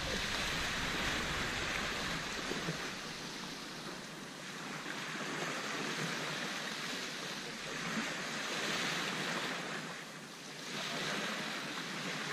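Small waves breaking and washing up a sandy beach: a steady rush of surf that swells and eases every few seconds.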